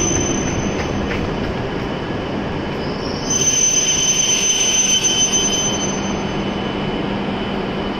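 E7-series Shinkansen train rolling slowly into the platform and braking to a stop, with a steady rumble and a high squeal that swells about three seconds in and eases off as the train halts.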